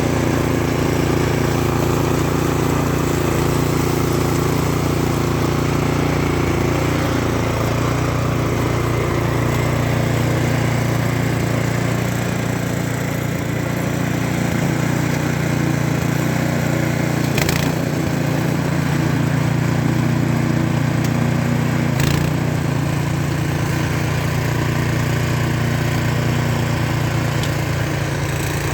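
Snow blower engine running steadily, with two short knocks in the second half.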